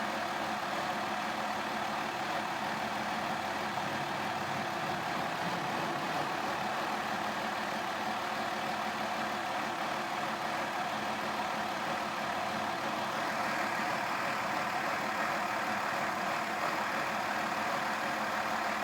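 2002 Mazda Tribute engine idling from a cold start, running rough with a rattling noise. This is a cold-idle fault that persists after the throttle body was cleaned and the oxygen sensors and spark plugs were replaced. The sound turns slightly brighter about thirteen seconds in.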